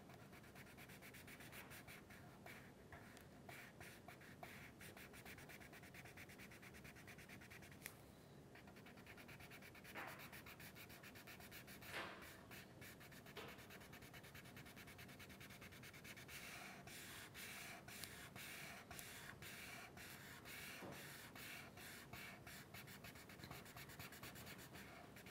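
Felt-tip marker rubbed quickly back and forth on paper, colouring in a shape: faint, rapid scratching strokes.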